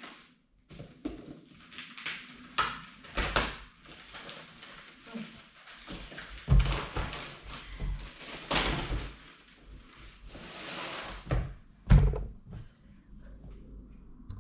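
A wrapped cardboard shipping box being cut and torn open with scissors: a run of ripping and scraping sounds, with dull thumps against the box, the loudest about six and a half and twelve seconds in.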